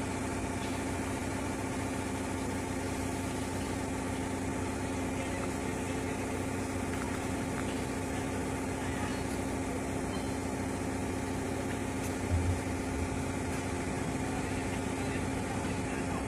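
Steady hum of an idling engine or motor, holding one pitch with several even tones, with a short low thump about twelve seconds in.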